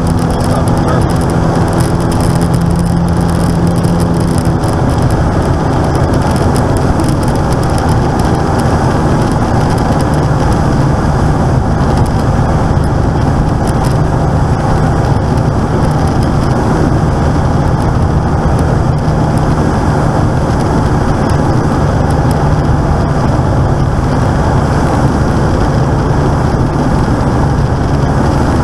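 Engine and propeller drone of a Velocity light aircraft heard inside its cockpit on final approach: a loud, steady hum with a slight shift in pitch about four seconds in.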